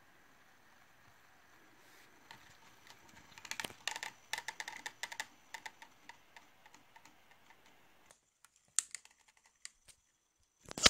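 Malfunctioning 3-axis brushless camera gimbal shaking on its own, its motors and the camera giving a run of irregular light clicks and rattles, densest in the middle and thinning out near the end, with one sharper click at the very end.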